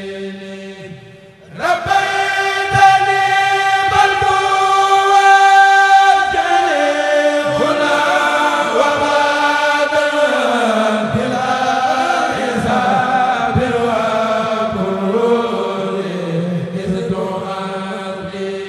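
A Mouride kourel group chanting a khassida, Arabic devotional poetry, in voices. A quiet held note gives way about a second and a half in to the full group coming in loudly, with long drawn-out notes that slide slowly between pitches.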